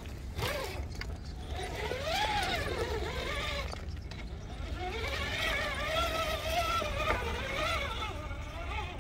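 Electric motor and geartrain of a Yikong YK-4083 Bronco RC crawler whining as it climbs over rocks. The pitch rises and falls with the throttle, coming in three spurts: a short one at the start, one of about two seconds, and a longer one through the second half.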